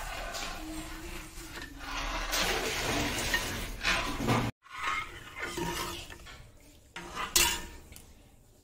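Metal ladle stirring a large metal pot of hot milk, scraping and clinking against the pot's bottom and sides in an irregular rhythm. The sound breaks off for a moment about halfway through, and a sharp clink comes near the end.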